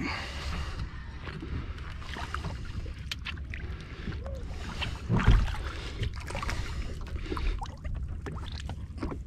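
Small-boat ambience on the water: a steady low rumble with water sloshing and scattered small knocks, and one heavier thump about five seconds in.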